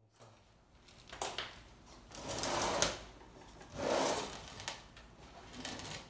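Handling noise from cables and float switches being moved around on a wooden tabletop: a few irregular bursts of rustling and light knocks.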